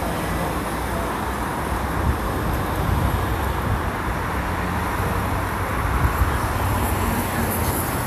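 Steady low rumble of road traffic on a city street, swelling slightly a couple of times.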